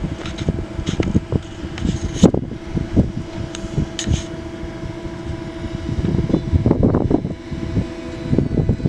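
NSB Class 70 electric multiple unit standing at the platform, its onboard equipment giving a steady hum of a few fixed tones, under irregular low thumps.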